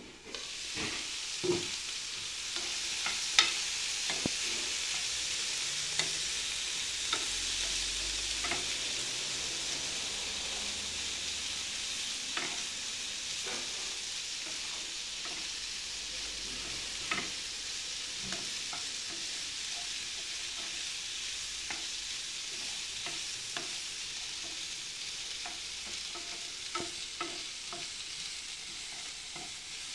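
Diced red and yellow bell peppers and onion sizzling in a frying pan. The sizzle jumps up right at the start as the lid comes off, then runs on under a wooden spatula stirring, which knocks and scrapes against the pan now and then.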